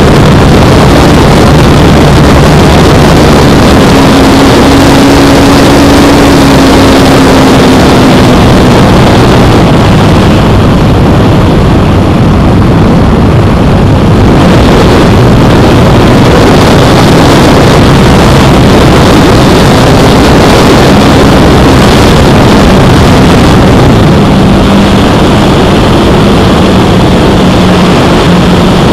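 Radio-controlled P-51 Mustang model in flight, heard from a camera mounted on the plane: its motor and propeller running continuously under heavy wind rush, the engine note drifting slowly up and down in pitch as it manoeuvres.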